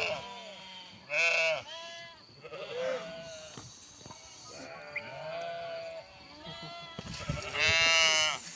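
A flock of sheep bleating: several separate calls from different animals, with a loud one about a second in and another near the end, and quieter bleats in between.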